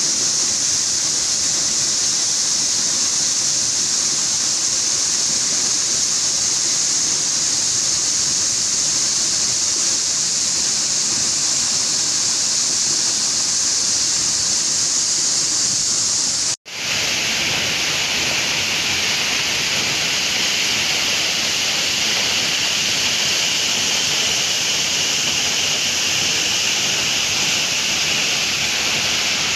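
A waterfall about 30 m high pouring into a rock pool: a loud, steady, continuous rush of falling water. It breaks off for an instant about two-thirds of the way through, then carries on slightly different in tone.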